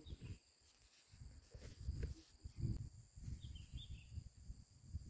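Wind buffeting the microphone in uneven gusts, over a steady high drone of insects, with a brief chirp about three and a half seconds in.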